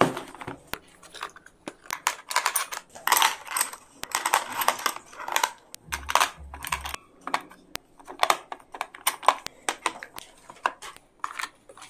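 Pencils and small plastic stationery pieces clicking and clattering as they are set into a hard plastic pencil case: a steady run of short taps and clacks.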